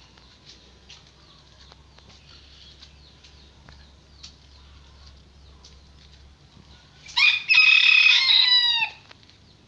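A rooster crows once, a loud call of about two seconds that starts about seven seconds in and drops in pitch at its end. Before it there are only faint scattered ticks.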